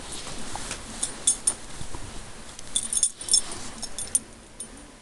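A dog chewing and mouthing a plush bee toy, with soft rustling and several short bursts of light metallic jingling.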